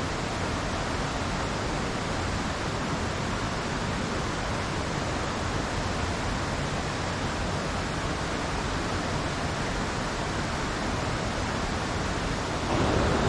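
The steady rush of a rocky mountain stream running over boulders and small cascades, a little louder just before the end.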